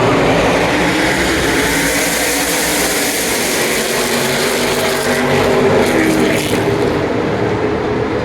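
NASCAR stock car engines running at speed, a steady engine drone with no speech over it.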